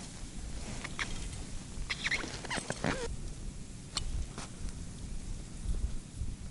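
Handling noise from gloved hands and winter clothing working a small ice-fishing rod and reel: scattered rustles, clicks and short squeaks, with a cluster of squeaks about two seconds in. Low wind rumble on the microphone throughout.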